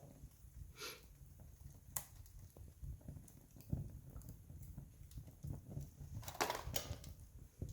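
Wood campfire crackling: scattered small snaps over a low rumble of the flames, with one sharp pop about two seconds in and a quick cluster of louder crackles about six and a half seconds in.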